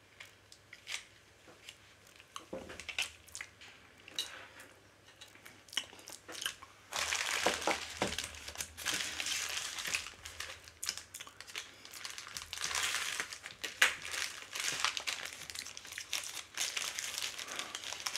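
Plastic postal mailer bag being handled and cut open, crinkling. Scattered small clicks and taps for the first several seconds, then steady crinkling from about seven seconds in.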